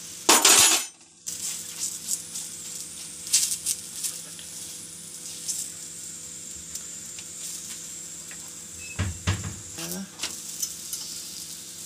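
Ghee sizzling steadily under a stuffed paratha frying on a flat iron tawa. A brief loud burst of noise comes about half a second in, and a few thuds and scrapes come near the end as the paratha is lifted and flipped.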